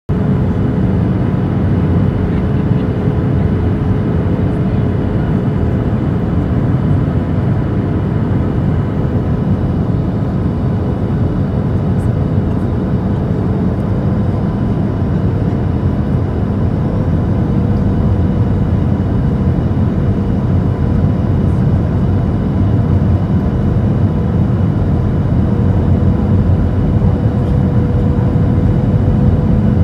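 Steady cabin noise inside a Boeing 737-700 on its landing approach: the drone of its CFM56-7B engines and the rush of air along the fuselage, with a steady hum and a fainter higher tone running through it.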